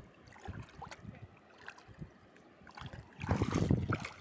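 Shallow water being stirred and splashed, with small irregular splashes and then a louder, longer splash about three seconds in.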